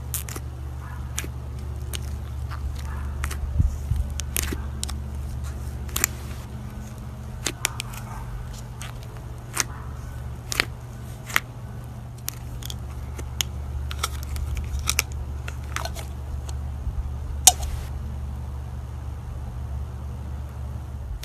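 Slime being squeezed and stretched by hand, giving irregular sticky pops and crackles, with a sharper pop about three and a half seconds in and another near the end, over a steady low hum.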